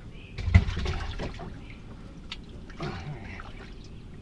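Water splashing and dripping as a caught bass is lifted and handled, with a loud thump about half a second in.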